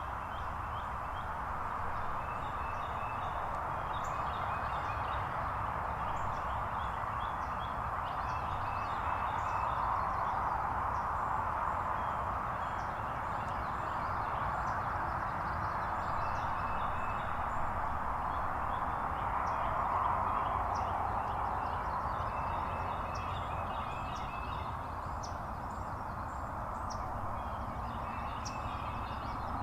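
Small birds chirping and calling repeatedly in short high notes over a steady hiss and low rumble.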